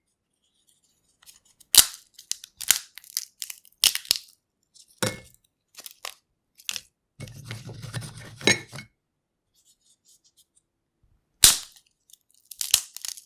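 Peanut shells being cracked open and peeled by hand: a series of sharp snaps with crackling and rustling of shell pieces, a longer crunching rustle a little past the middle, then a pause before one last loud crack.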